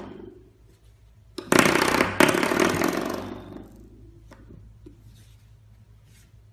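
A spring doorstop flicked by a puppy, buzzing and rattling loudly as the spring vibrates, then dying away over about two seconds.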